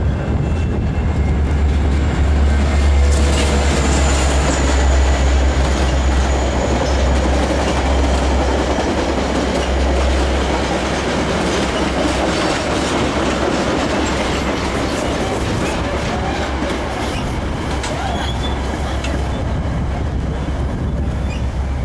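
Metra MP36PH-3S diesel locomotive running past at speed with a strong low engine drone, followed by a long string of bilevel commuter cars rolling by on steel wheels. The sound is loudest a few seconds in as the locomotive passes and eases slightly as the cars go by.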